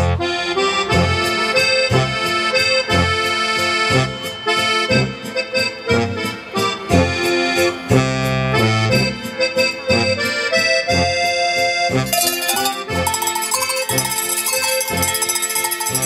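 Lively oom-pah folk music led by an accordion over a steady bass beat. Near the end, bright ringing bells join in.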